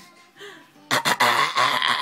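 A person coughing, a loud run of rough coughs starting about a second in.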